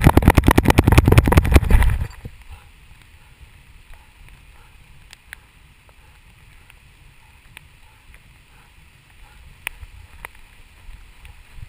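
Quick, rhythmic thudding and rustling of a running dog's strides, heard close up through a camera strapped to its harness. It stops about two seconds in, leaving only faint rustling and a few small clicks.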